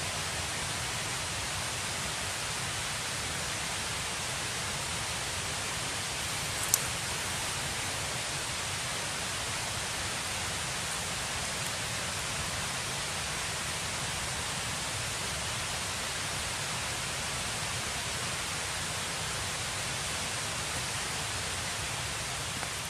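Steady, even background hiss with no distinct source, broken once by a brief sharp click about seven seconds in.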